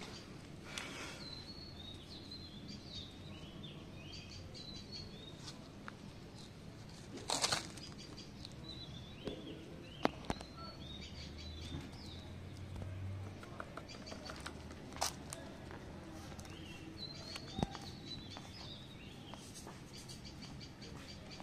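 Small birds chirping on and off in short high calls, with scattered sharp clicks and a brief rustle about seven seconds in.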